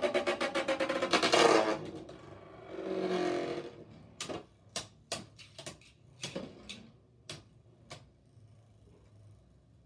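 Beyblade spinning tops in a plastic stadium. For the first second and a half there is a fast, even rattle, like a top wobbling and chattering against the plastic. After that come a dozen or so separate sharp plastic clicks and knocks, spaced further and further apart, and they die out after about 8 seconds.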